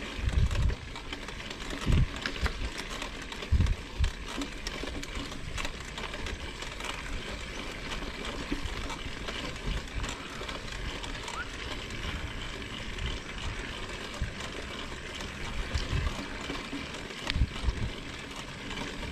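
Mountain bike rolling over a grassy dirt trail: a steady rustle and rattle from the tyres and bike, broken by a few heavy low thumps, a cluster about two to four seconds in and another near the end.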